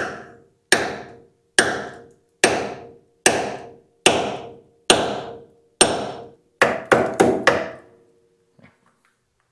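Hammer blows on steel in a truck's front coil-spring suspension, tapping a part loose. Each strike rings briefly. Eight come at an even pace about a second apart, then four quick ones, and the hammering stops.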